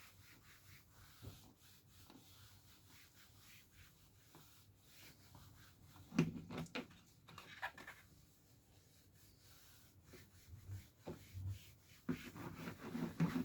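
A cloth pad rubbing and wiping over plastic car trim, in short scratchy spells with small clicks, louder about six seconds in and again near the end.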